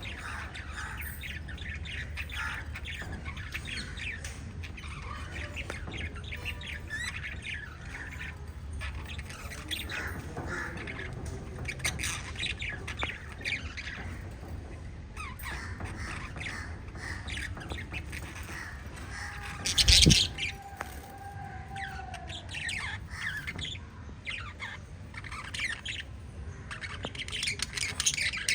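Small parrots chirping and squawking continuously in rapid, overlapping calls, with one sudden loud thump about two-thirds of the way through.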